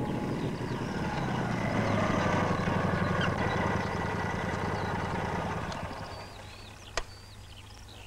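Motorcycle-and-sidecar engine running with a rapid pulsing beat, then dying away about six seconds in. A single sharp click follows about a second later, and birds chirp lightly throughout.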